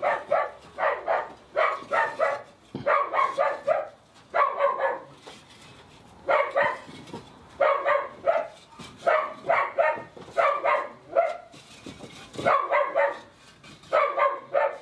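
A dog barking again and again, in quick runs of two to four short barks with brief pauses between.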